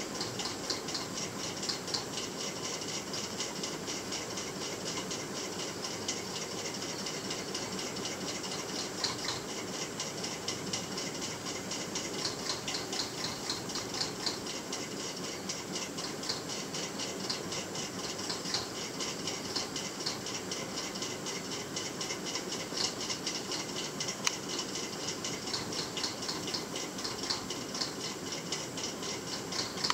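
Night insects chirring steadily as a dense, rapid, high-pitched pulsing, over a faint even hiss.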